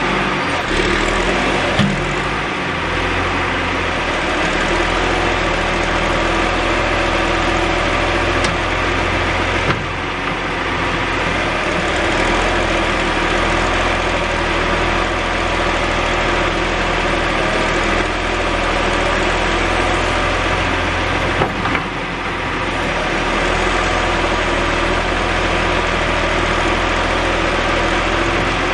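John Deere backhoe's diesel engine running steadily, with a few brief knocks and short dips in level a couple of seconds in, about ten seconds in and about twenty-two seconds in.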